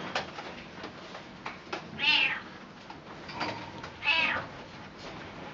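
Cat meowing twice, loudly, about two and four seconds in, with a softer meow between them. A few short clicks come in the first two seconds.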